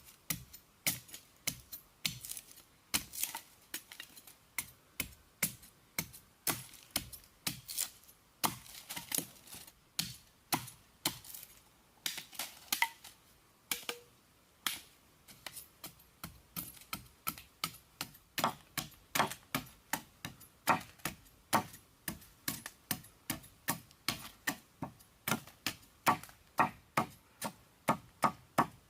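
A long series of sharp knocks or taps, about two to three a second, with a short lull about halfway through and quicker, louder strikes afterwards.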